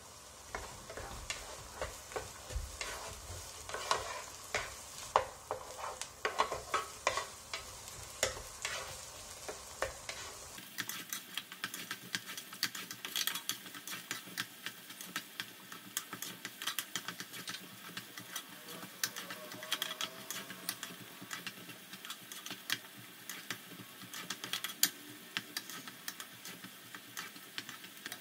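Sliced green chillies, ginger and garlic sizzling and crackling in hot oil while a wooden spatula stirs them through. The crackling turns denser and hissier about ten seconds in.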